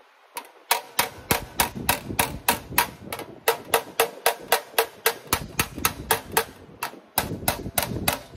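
Hammer-and-dolly work on a sheet-metal repair panel: a hammer strikes the panel over a dolly held underneath, about four to five ringing blows a second with a brief pause near the end. The blows blend two formed parts together in a wire form so they interlock before welding.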